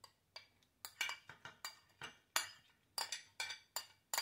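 A spoon clinking repeatedly against a glass dish, about three sharp clinks a second, as chopped garlic is knocked out of it into a stainless steel pot.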